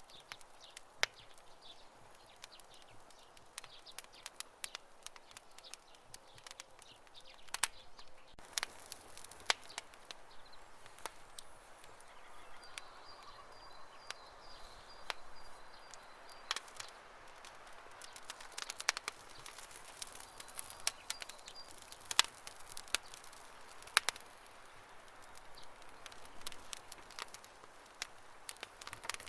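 Wood campfire crackling: irregular sharp pops and snaps, some much louder than others, over a soft hiss of burning.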